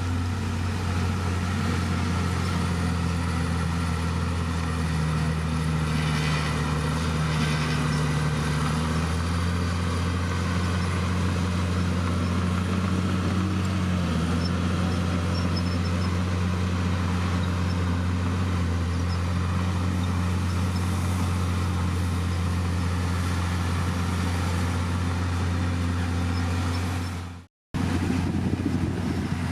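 Komatsu D51PX bulldozer's diesel engine running steadily under work, its note lifting for a few seconds and then settling back. The sound cuts out suddenly for a split second near the end.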